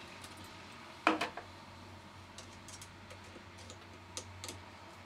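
Metal padlock being unlocked and taken off a circuit breaker lockout, with one loud clack about a second in, then a few light clicks of a screwdriver working at the breaker's lock-off device.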